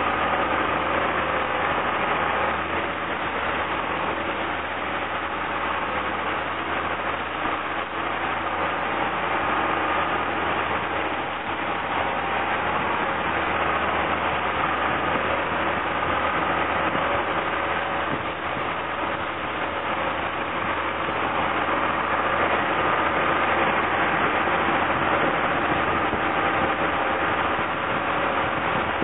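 Mercedes-Benz Unimog U1700 truck's diesel engine running steadily at low revs, with no change in pitch.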